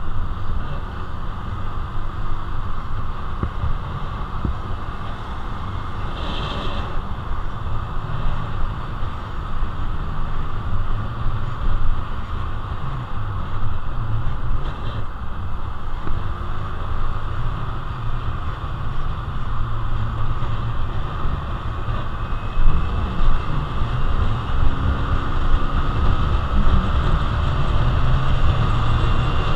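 Wind buffeting the microphone over the low running of a Honda Navi's small air-cooled single-cylinder engine while riding, with the engine note climbing over the last few seconds as the bike speeds up on the open highway.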